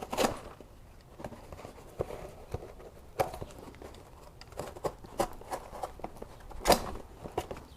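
Cardboard shipping box being handled and opened: scattered taps, scrapes and crinkles, the loudest about a third of a second in and again about a second before the end.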